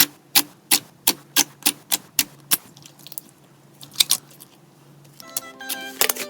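Slime being pressed and poked, giving a run of sharp pops about three a second, then two more a little later. Music with plucked notes comes in near the end.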